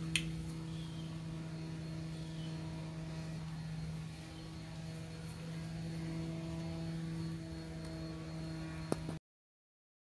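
Steady low hum of a running motor, with a sharp click near the start and another near the end; the sound cuts off abruptly about nine seconds in.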